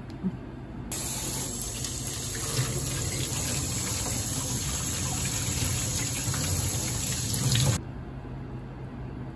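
Kitchen tap water running into a stainless steel sink while a squid mantle is rinsed under it by hand; the water comes on suddenly about a second in and is shut off near the end. A single short knock comes just before the water starts.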